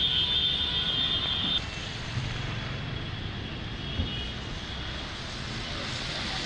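A steady high-pitched whine that cuts off suddenly about a second and a half in, giving way to the hiss of heavy rain and traffic on a waterlogged street, which grows as an auto-rickshaw splashes through standing water near the end.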